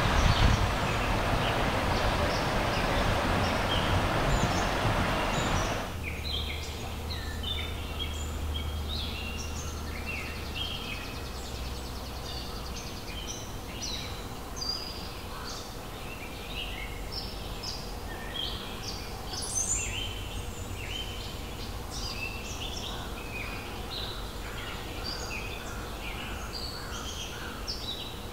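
A steady rushing noise for the first six seconds cuts off abruptly. After that, several forest birds chirp and sing in short, scattered high notes over a faint low hum.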